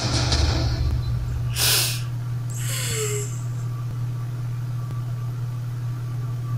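A young woman crying: a shaky sobbing breath at the start, a sharp sniff or gasp just under two seconds in, and a short whimper falling in pitch about three seconds in, over a steady low hum.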